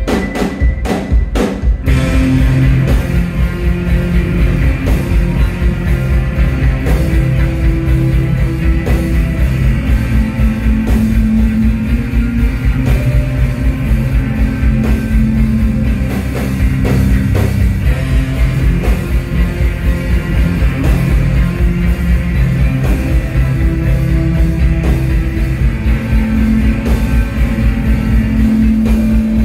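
Live instrumental post-rock band: several electric guitars and a drum kit playing loud together. A few hard single drum strokes open, then the full band comes in about two seconds in with sustained guitar notes over a steady beat.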